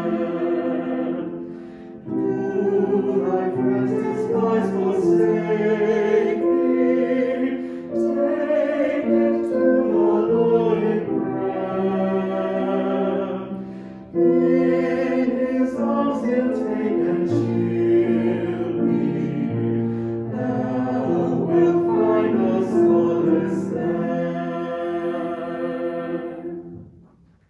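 Choral music: voices singing slow, sustained chords in long phrases, fading out near the end.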